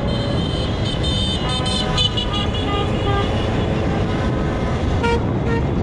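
Several car horns honking over one another in slow, jammed traffic, in short and longer blasts at different pitches, over a steady rumble of engines and road noise: celebratory honking.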